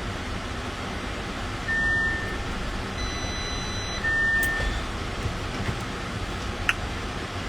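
Steady rumble of a car running, heard from inside the cabin, with two short high beeps about two seconds apart and a brief click near the end.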